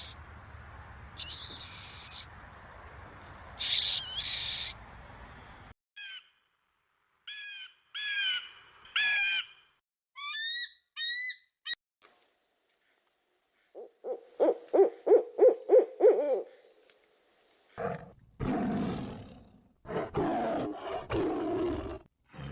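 A string of different animal calls. First come short, repeated chirping calls that bend in pitch. Then comes a fast run of about eight low pulsed calls over a steady high whine, and harsher, noisier calls near the end.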